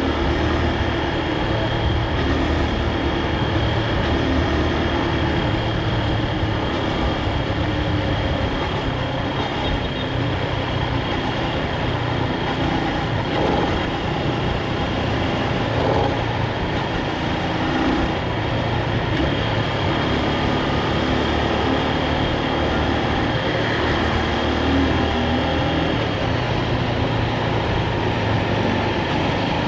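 Honda CB223S's air-cooled single-cylinder four-stroke engine running under way at cruising speed, its note swelling and easing a little, over a steady rush of road and wind noise.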